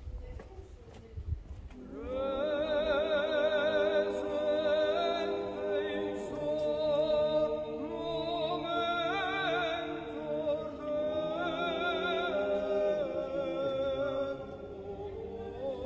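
Choir singing, entering about two seconds in with voices held in a wavering vibrato. Before it there is only a faint low rumble with a couple of thumps.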